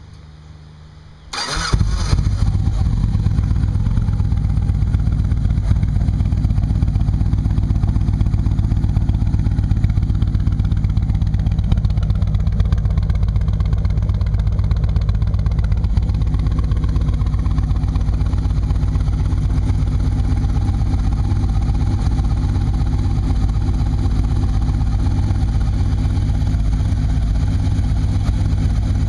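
An engine starts about a second and a half in, then runs at a steady idle with an even, pulsing exhaust note.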